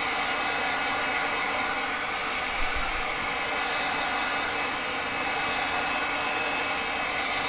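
Craft heat tool running steadily, its fan blowing a constant rush of hot air to dry paint.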